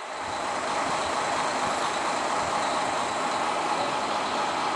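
Diesel railcar's engine running steadily, a constant rumble without changes.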